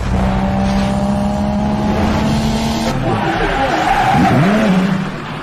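Produced race-car sound effect: a car engine running steadily, then a sweeping rise and fall in pitch with a tyre-screech hiss about three seconds in.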